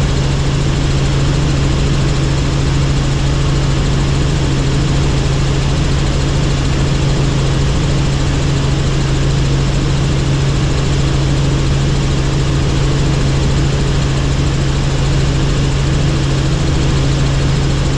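Helicopter in flight: steady rotor and engine noise with a strong, unchanging low hum.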